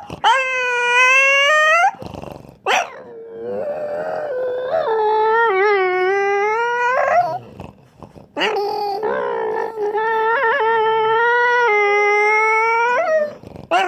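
French bulldog howling in long, drawn-out whining calls that waver and slide in pitch like an engine revving. Three calls: a short one, then two held for about four and five seconds, with a sharp yip between the first and second.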